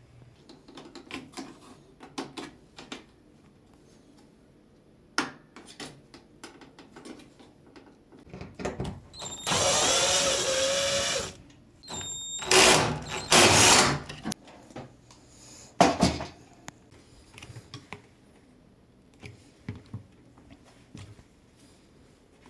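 Cordless drill or power screwdriver running in short bursts: one steady run of about two seconds with a whine, then several shorter runs, among clicks and knocks of parts being handled.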